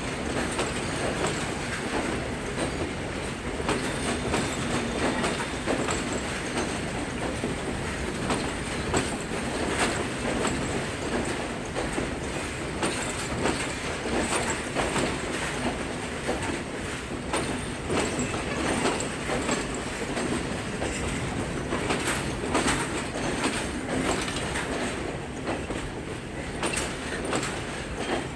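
Train running along the tracks, its wheels clicking steadily over the rail joints, with a continuous rumble.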